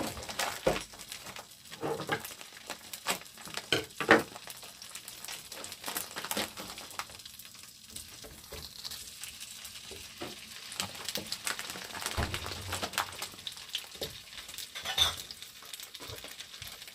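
Hot dog sausages sizzling in a frying pan, with scattered clicks and light knocks as more sausages are laid into the pan and moved around in it.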